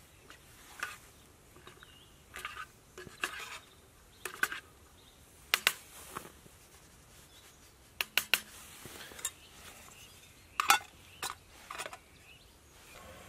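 Metal spoon stirring and scraping inside a metal camping pot, with irregular sharp clinks of spoon on pot, the loudest about ten and a half seconds in.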